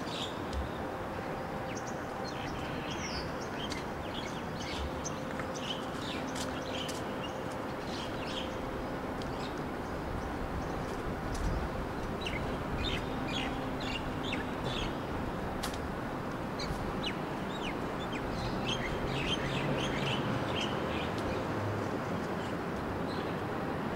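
Small birds chirping in many short, scattered calls, busiest in the second half, over a steady low hum of city traffic.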